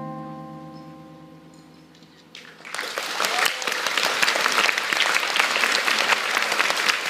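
The last guitar chord of the dance music ringing out and fading away, then audience applause breaking out about two and a half seconds in and continuing.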